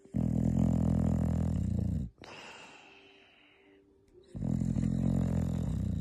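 Sleeping dog snoring hard: two long, loud, low rumbling snores of about two seconds each, with a quieter, faintly whistling breath between them.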